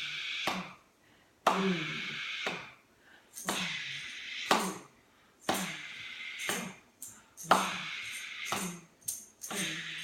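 Classroom percussion instruments played together as a storm soundscape: a struck beat about once a second, each hit followed by a noisy shimmering wash that dies away, with quicker hits near the end.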